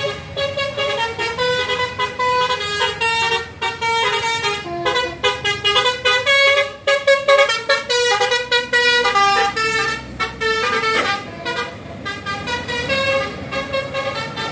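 Bus telolet Basuri multi-tone melody horn playing a fast tune of stepped notes, note after note.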